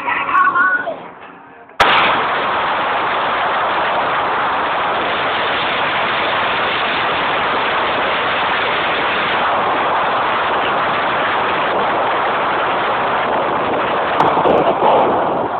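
A snatch of music, then about two seconds in a sudden switch to a loud, steady rush of wind buffeting the phone's microphone, mixed with road noise from a moving vehicle.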